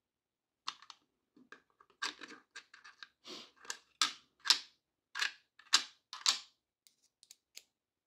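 Small metal screwdriver bits clicking and rattling as a hand rummages in a plastic precision bit case: an irregular run of short clicks and scrapes, loudest between about four and six and a half seconds in.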